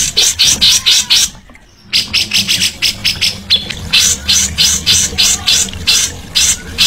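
A songbird repeating short, sharp, high chipping notes several times a second, with a brief break about a second and a half in. A low steady hum runs underneath.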